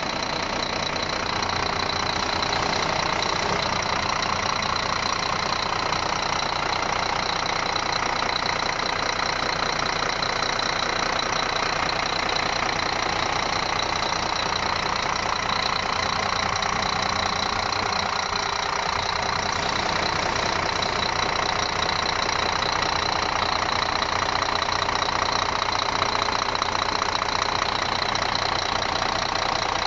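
Freshly rebuilt Scania D12 inline-six diesel truck engine idling steadily on its first run after an overhaul, with a thin high-pitched tone held above the engine sound.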